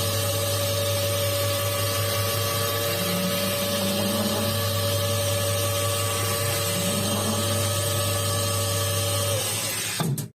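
Lathe running steadily with a low hum and a whine, then switched off near the end, the whine falling as it winds down.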